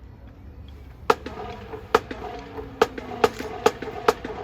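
Sharp wooden clicks, like drumsticks struck together: six in all, the first few spaced almost a second apart, then coming faster, about two a second.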